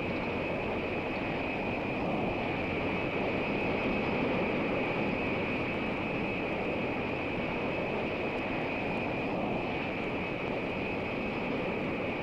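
B-52 mothership's jet engines running on the ground: a steady rushing noise with a constant high-pitched whine.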